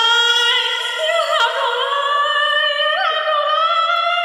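A high-pitched voice holding long, drawn-out notes in an operatic, wailing style, its pitch stepping up and down a few times.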